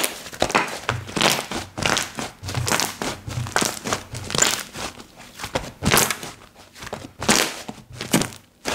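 Slime being squished and kneaded by hand, giving a quick, irregular run of crackly, crinkling squishes that stops near the end.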